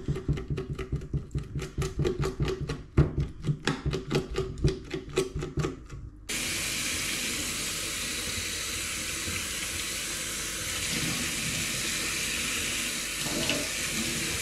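A knife scraping a sea perch on a wooden cutting board in quick, repeated strokes, about four a second, taking off the black lining. About six seconds in, a kitchen tap comes on suddenly and runs steadily as the fish is rinsed under it.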